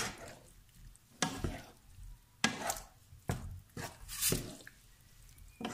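Wooden spoon stirring chunks of chicken and vegetables in their juices in a frying pan: a run of about nine irregular wet scraping strokes against the pan.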